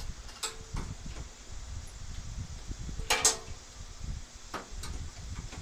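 Small metal hardware (butterfly drywall anchors and screws) clicking and clinking as it is handled and fitted into a 1976 Chevy Blazer's grille. There are two light clicks near the start, a sharper double click with a brief ring about three seconds in, and two faint clicks later.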